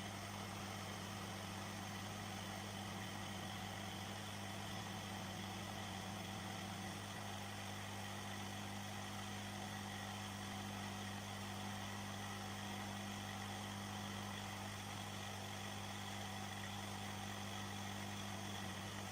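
Hot-air plastic-welding station's blower running steadily: an even hum with a faint hiss, unchanging throughout.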